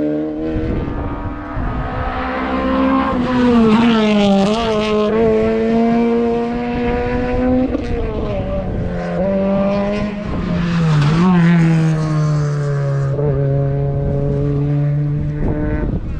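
Race car engine pulling hard under full load, its pitch held high and then dropping sharply at gear changes, twice.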